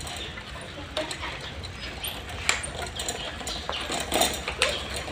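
Small plastic tricycle rolling over a concrete floor, its wheels and frame rattling with irregular clicks and knocks.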